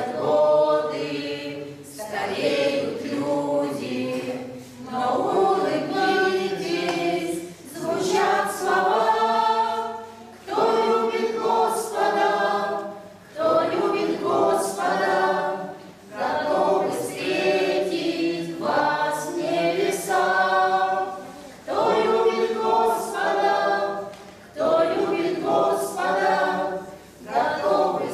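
Small mixed church choir of older women and men singing a hymn a cappella, in phrases a few seconds long with brief pauses for breath between.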